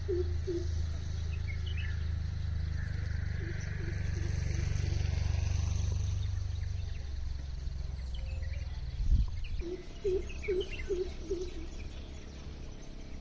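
Greater coucal calling: runs of five or six deep, evenly spaced hoots, heard at the start, again about three and a half seconds in, and once more near ten seconds. Small birds chirp higher up, a low rumble runs under the first half, and a single thump comes about nine seconds in.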